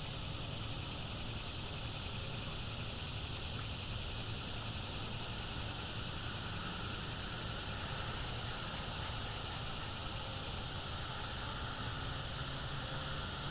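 Steady outdoor background noise: a constant high-pitched hiss over a low hum, with no calls from the eagle on the nest.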